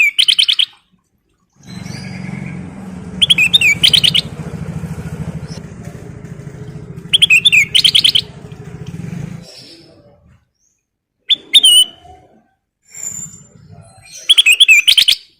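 Kutilang emas bulbul calling in short bursts of rapid, chattering whistled notes, about five bursts a few seconds apart. A low steady drone, like a motor, runs under the first two-thirds and stops suddenly.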